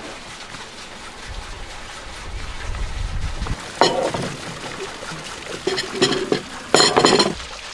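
A low rumble, then a sudden clatter about four seconds in as a large metal serving tray of kebabs is set down on a wooden table, with more short handling noises near the end.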